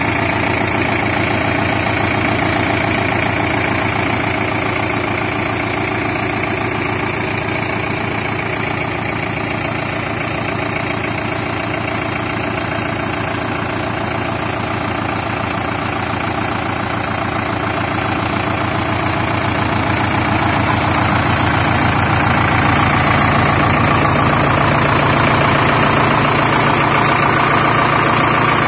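Sonalika Tiger 60 Max tractor's diesel engine idling steadily with an even beat, growing a little louder in the last third.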